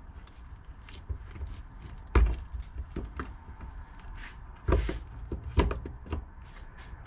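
Several sharp knocks and clatters of metal parts and tools being handled, the loudest about two seconds in and two more close together near the five-second mark, with smaller clicks between.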